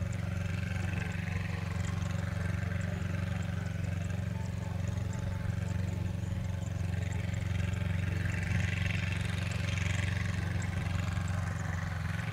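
Yanmar YM2700 small diesel tractor's engine running steadily as it tows a trailer loaded with sacks of rice.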